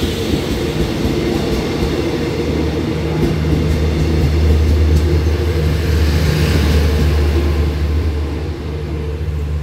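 Passenger coaches of a train rolling past close by, wheels running on the rails with a few clicks over joints. From about three seconds in, a strong steady low hum rises as the power car with its diesel generator passes, then eases near the end.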